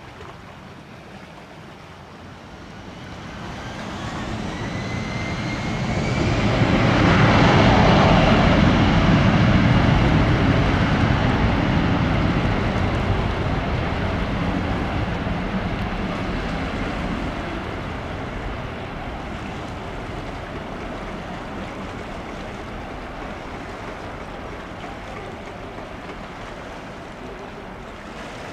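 Airbus A321's twin CFM56 turbofans at takeoff thrust. A rising whine as they spool up gives way to a loud rushing engine noise that peaks as the jet passes about eight seconds in, then slowly fades as it climbs away.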